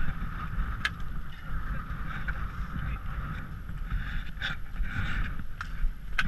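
Wind buffeting a helmet camera's microphone as a constant low rumble, with a steady hiss and four short sharp clicks, the last near the end.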